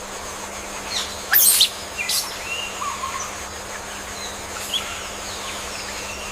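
Birds chirping: two loud, sharp chirps about a second and a half in, then softer whistled calls, over a faint steady hum.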